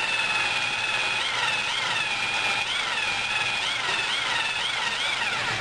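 Electric drill spinning a cylinder hone in a Suzuki GS500 cylinder bore, honing the wall. Its whine wavers up and down in pitch, then falls away as the drill stops at the end.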